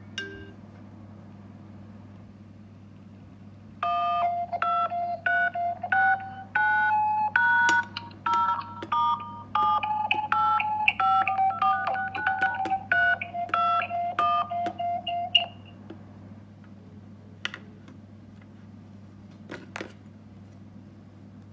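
Telephone keypad touch tones (DTMF) from an iPhone's in-call keypad: a string of about sixteen short two-tone beeps, one per key pressed, at an uneven pace, starting a few seconds in and lasting about eleven seconds. A couple of faint taps follow.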